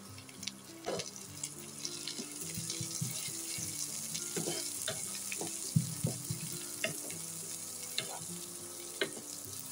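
Chopped onion sizzling in hot ghee in a non-stick kadai, stirred with a wooden spatula that scrapes and taps against the pan every second or so.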